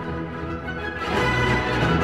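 Orchestral music, growing louder about a second in.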